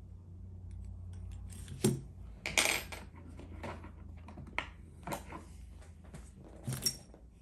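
Sharp metal clicks and clinks of an Allen wrench being worked on a tight set screw in a steel padlock, the wrench slipping in the screw head; the loudest clink comes about two and a half seconds in. A low steady hum runs underneath.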